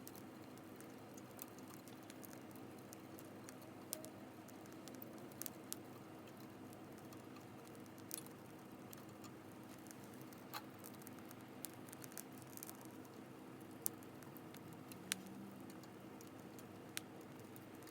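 Campfire crackling: a faint steady hiss with irregular sharp pops and snaps every second or two.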